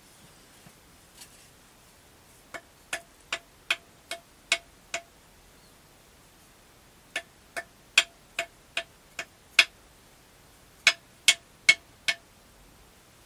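A hard object being tapped in three runs, seven, seven and four taps, about two and a half a second. Each tap is sharp with a short ringing note.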